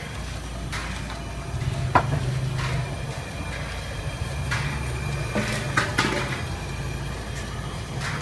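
Stainless-steel plates of fried fish knocking and clinking against each other and the rim of a metal pot as they are stacked, a few sharp clinks about two seconds in and a cluster near six seconds, over a steady low hum.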